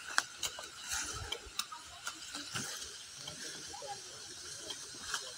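Faint scattered clicks and crackles of footsteps on forest-floor leaf litter and twigs, irregular, over a faint background hiss.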